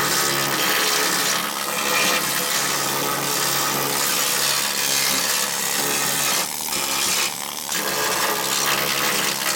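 Small handheld power scaling tool running steadily against the car's steel floor pan, chattering as it strips undercoating and loose rust scale, easing off briefly twice in the second half.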